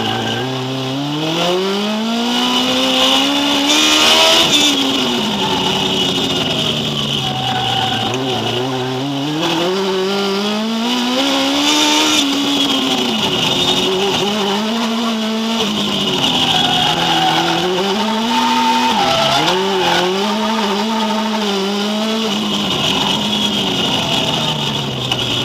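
Drift car's engine heard from inside the cabin, revs climbing and dropping repeatedly as the car is driven sideways, with tyre squeal over it.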